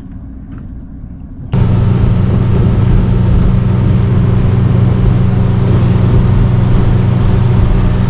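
Honda four-stroke outboard motor running at speed, with wind and rushing water over it; steady and loud. It starts abruptly about a second and a half in, after a quieter low rumble.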